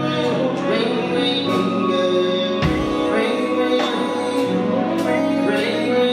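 Slow R&B song played at a live show: sustained chords and bass under a light drum beat, with a deep bass note dropping in about two and a half seconds in.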